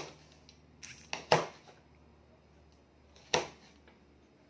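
Kitchen knife slicing raw sweet potato into fry strips and knocking down onto a cutting board: a handful of sharp knocks, with a quick cluster about a second in and another single knock a couple of seconds later.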